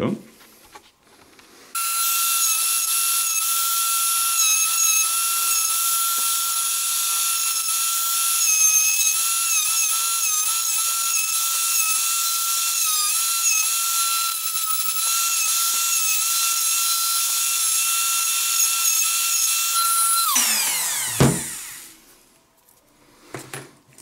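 Small high-speed electric power tool starting about two seconds in and running with a steady high whine. Its pitch dips a little now and then. Shortly before the end it is switched off and spins down with a falling pitch.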